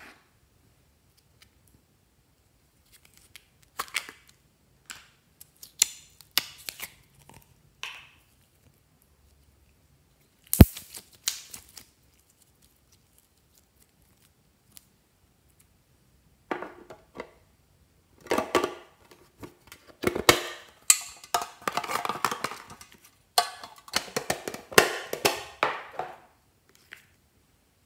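Glossy slime being stretched and squeezed by hand, giving sticky clicks and wet pops. They are scattered at first, and in the second half there is a dense run of crackling and squishing. One sharp click about ten seconds in stands out from the rest.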